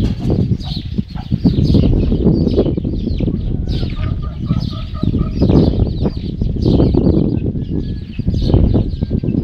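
Chickens clucking, with chicks peeping in many short high chirps, over a loud low rumble on the microphone. A short run of clucks comes about four seconds in.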